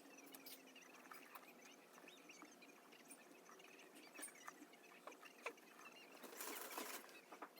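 Faint eating noises: small nibbling clicks and crackles, scattered irregularly, with a short rustle near the end.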